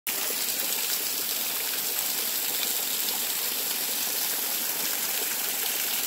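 Small waterfall: thin streams of water falling off a rock ledge and splashing steadily onto rocks and a shallow pool, a high, even hiss of spray.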